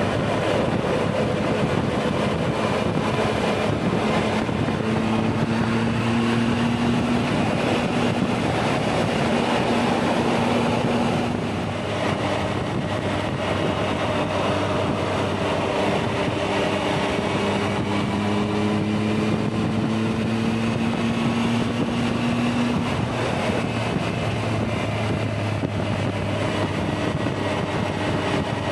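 Triumph Tiger 1200's three-cylinder engine running at highway cruising speed under a steady rush of wind and road noise, its note slowly rising and falling a few times as the throttle changes.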